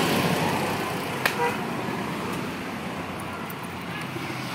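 Honda Supra X 125's single-cylinder four-stroke engine idling steadily, with one sharp click about a second in.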